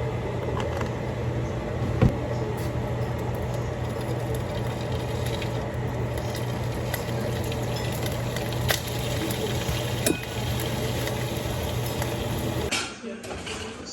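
Steady cooking noise, a sizzling hiss over a low hum, that cuts off abruptly near the end, followed by a few clinks of dishes.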